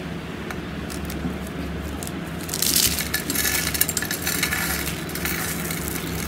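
Slime being squeezed and worked by hand, with a crisp crackling, clicking texture that grows louder about two and a half seconds in. A steady low hum runs underneath.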